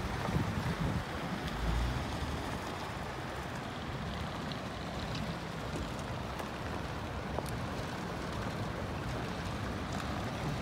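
Steady noise of a line of cars and pickup trucks driving slowly along a gravel road, with wind on the microphone adding low rumbles in the first couple of seconds.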